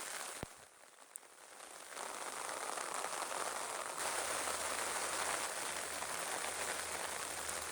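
Steady monsoon rain falling, with a faint low steady hum underneath. A single sharp click comes about half a second in, followed by a quieter spell before the rain comes back up at full level near two seconds.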